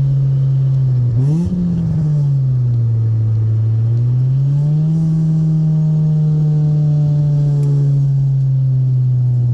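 Honda EK Civic's four-cylinder engine and header exhaust droning while driving, with a short rev about a second in that falls back to a lower pitch, then rising again just before five seconds in and holding steady at the higher pitch.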